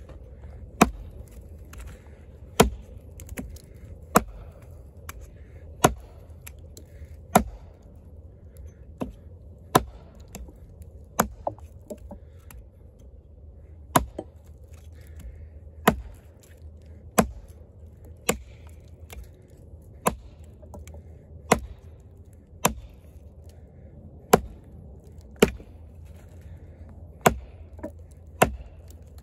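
Kobalt 14-inch camp axe with a hickory handle chopping into a dry, barkless log: a steady series of sharp chops, about one every one and a half seconds, as the bit bites out a notch.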